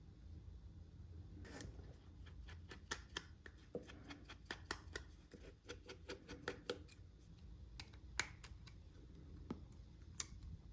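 Small tools and parts of an iPhone SE being handled during its teardown: a string of small, sharp, irregular clicks and taps, several close together, with a couple of louder clicks near the end.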